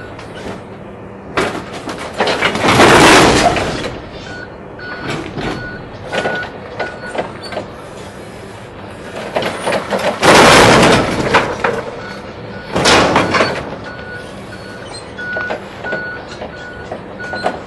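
A Toyota forklift working: engine running with a steady hum, and its reversing beeper sounding in spells at about two beeps a second. Three loud surges of noise, a second or two each, come about two seconds in, around ten seconds and around thirteen seconds.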